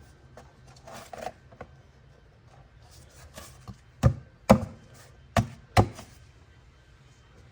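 A plastic engine cover being pressed down and snapped onto its mounts: a few light clicks and rustles, then four sharp knocks in two pairs about a second apart.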